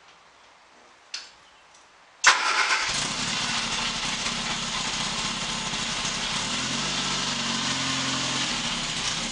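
Morris Mini Cooper S's A-series four-cylinder engine starting suddenly about two seconds in, then running steadily, with its pitch rising and shifting briefly late on. It is being run to bring it up to temperature after a coolant refill.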